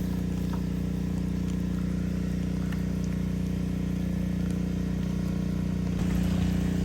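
A motor running with a steady, even-pitched hum, getting a little louder about six seconds in.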